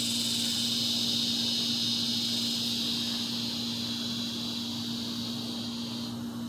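Insects trilling steadily in a high pitch, fading out about six seconds in, over a steady low electrical-sounding hum.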